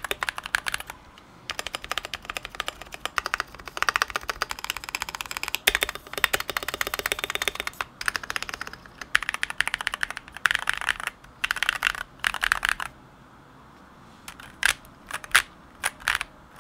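Mechanical keyboard typing: stock Glorious Panda tactile switches on a GMMK Pro modded with tape, case foam removed and gasket mod, giving fast runs of keystroke clacks with short breaks. The typing stops about thirteen seconds in, and a few separate key presses follow near the end.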